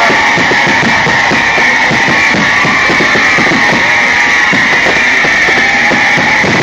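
Loud rock music with drums and guitar, distorted by the phone's microphone.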